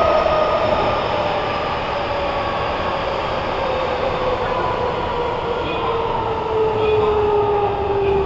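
Nagoya Municipal Subway N3000-series train heard from inside the passenger car: running rumble under a traction-motor whine that falls steadily in pitch as the train slows.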